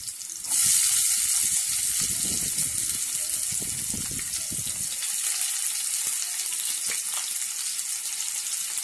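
Chopped onions dropped into hot oil with frying garlic in a kadai: a loud sizzle starts suddenly about half a second in and carries on steadily.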